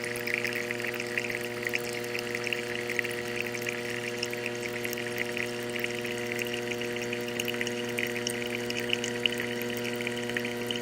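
Tassimo pod coffee machine brewing: its water pump hums steadily while coffee streams into the mug with a fine crackle.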